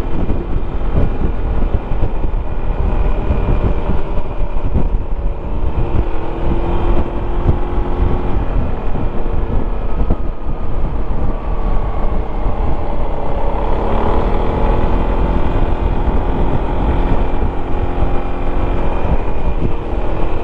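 Yamaha XMAX 300 scooter's single-cylinder engine running on the move, heard from a helmet microphone over a steady low rumble. The engine note rises and falls with speed, climbing noticeably about two-thirds of the way through.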